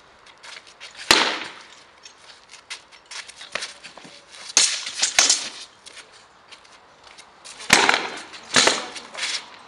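Sword and shield blows in a reenactment sparring bout: sharp, loud strikes, one about a second in, two close together around the middle, and two more near the end, each with a short ringing smear, with fainter clicks and scuffs between them.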